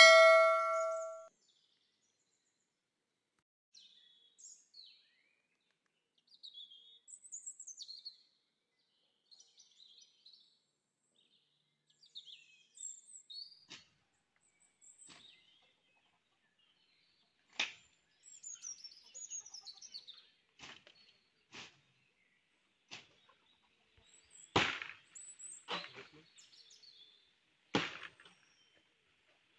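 A bell-like chime rings out and fades at the very start. Faint bird chirps follow. From about halfway on, a blade chops into bamboo in sharp strikes a second or two apart.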